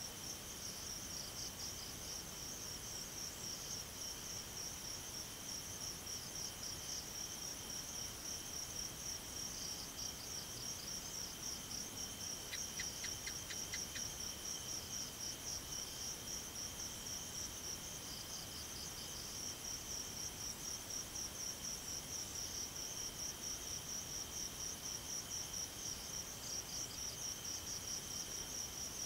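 Chorus of night insects chirping in steady, rapidly pulsing high trills. A short run of about six quick chirps stands out near the middle.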